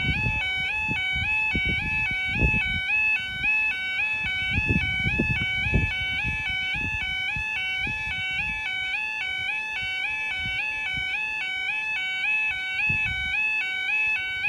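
Level crossing audible warning alarm sounding while the barriers are down: an electronic two-tone warble that alternates between two pitches in a steady repeating pattern, warning that a train is approaching. Low rumbling noise comes and goes underneath it.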